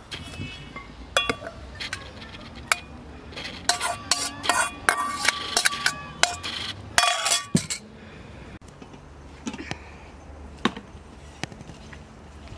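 Dishes and cutlery clinking: repeated sharp metal or glass strikes, some leaving a short ringing tone. The clinks are busiest in the middle of the stretch, then thin out to a few faint taps.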